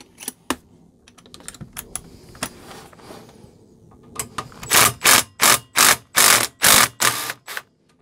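Scattered clicks and taps, then a run of about seven short, loud scuffing noises, roughly three a second, as a metal RV converter case and its wiring are handled and shifted.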